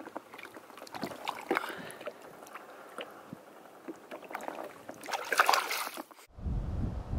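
Water sloshing and splashing with light knocks as a bass is lowered over the side of a boat and released, the loudest splash coming about five seconds in as it goes. About six seconds in the sound changes abruptly to wind buffeting the microphone.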